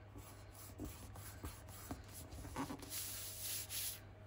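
Hands folding and rubbing kraft paper against a cutting mat: quiet paper rustling and rubbing with small ticks, and a longer, louder rubbing swish about three seconds in.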